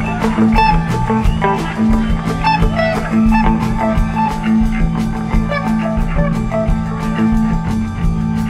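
Live jam-band rock: an electric guitar plays a lead line of separate notes over a steady drum beat, with low bass and keyboard notes held underneath.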